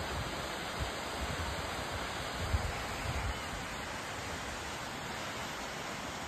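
Steady rushing of a waterfall heard from above, an even hiss with no letup, with a few low rumbles on the microphone in the first three seconds.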